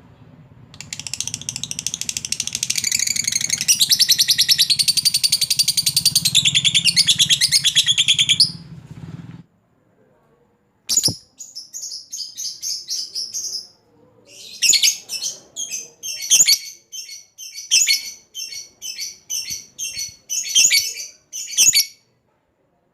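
A lovebird giving a long, fast, unbroken chattering trill (a long 'ngekek') for about eight seconds, a call that keepers use to challenge a rival bird. After a short pause it goes on with a string of short, sharp chirps, about one or two a second.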